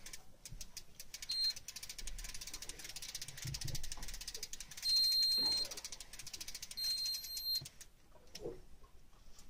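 Electric fishing reel sounding three electronic beeps: a short one a little over a second in, then two longer ones about five and seven seconds in. Underneath runs a rapid, even clicking that stops shortly before the end.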